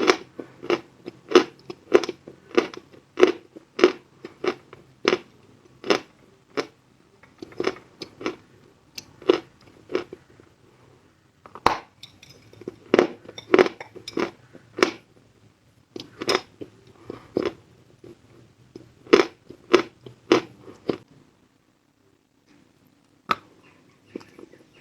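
A person chewing pieces of chalk close to the microphone: crisp crunches about two a second, in runs with a couple of short pauses.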